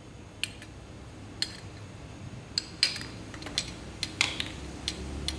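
Small metal parts clinking and tapping together as they are handled, a dozen or so sharp, irregular clicks, a few of them louder.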